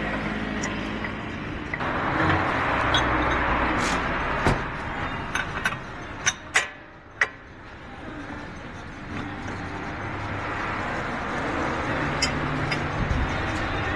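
A steady mechanical hum and hiss, with scattered sharp clicks and knocks, the loudest a few seconds in.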